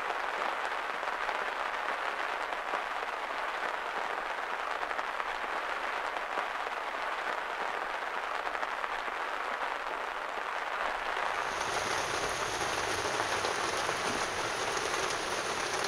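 Heavy rain falling steadily: an even, unbroken hiss. About eleven seconds in the sound gets fuller, with a low rumble added beneath the rain.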